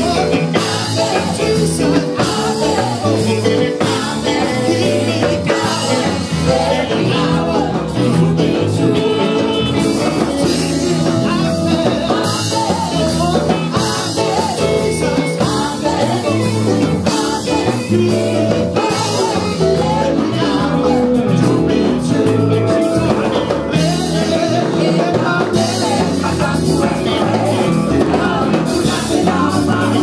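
Live praise and worship band playing a song: acoustic and electric guitars and a drum kit with singers on microphones, the congregation singing along.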